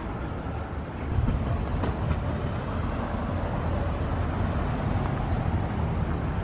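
Zürich city tram rolling along street rails, a steady low rumble mixed with road traffic, growing louder about a second in.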